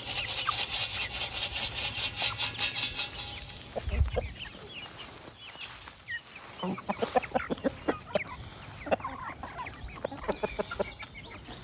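Chickens clucking and calling in short bursts as the flock gathers at scratch grain. In the first three seconds they are mixed with a rapid, rhythmic scratchy rustling.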